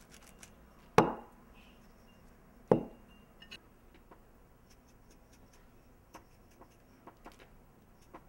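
Glass condiment shaker set down hard on a table twice, two sharp knocks with a short ring about a second apart near the start, followed by a run of faint light ticks and taps as shakers are handled and shaken.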